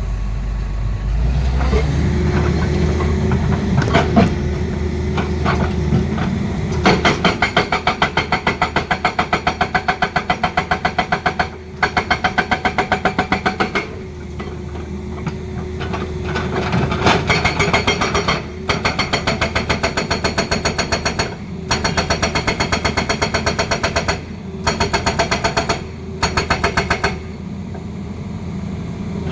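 Hydraulic breaker on a Tata Hitachi excavator hammering rapidly in bursts of several seconds with short pauses, over the excavator's engine running steadily. The hammering starts about a quarter of the way in, after a few separate knocks.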